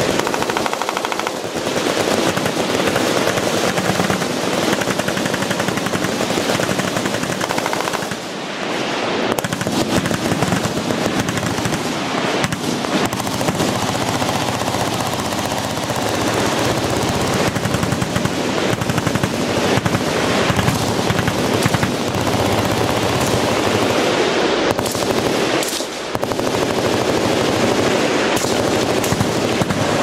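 Massed machine-gun fire from many guns at once, a dense, unbroken din that eases only briefly about 8 and 26 seconds in.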